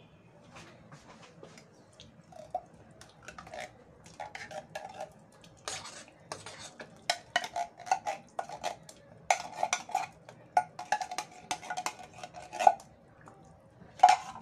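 Metal clinking and scraping as a tin can of corn is emptied into a stainless steel pot of soup: many short, ringing clinks of metal on metal. They start about two seconds in, come thicker from halfway, and one loud clank comes near the end.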